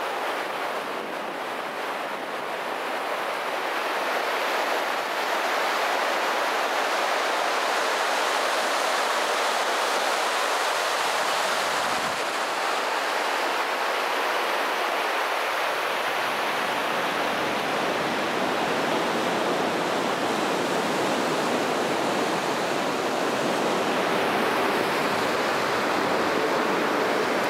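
A fast river rushing steadily: a constant hiss of flowing water that grows a little louder over the first few seconds, then holds.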